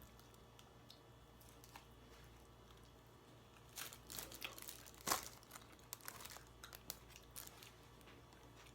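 Faint scattered clicks and rustles of handling at the table while eating, starting about four seconds in, with one sharper click a little after the middle.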